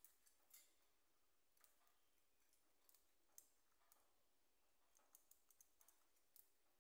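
Near silence with faint, irregular clicks of a budgerigar pecking at seed in a plastic feed cup.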